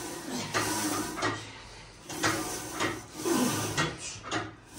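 A woman breathing hard and grunting through barbell squats: forceful, hissing breaths in and out, a burst every second or so, some with a low strained voice under them.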